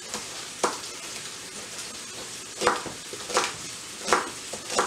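A large kitchen knife chopping celery on a plastic cutting board, five separate chops spaced about a second apart, over the steady sizzle of a beef roast searing in a frying pan.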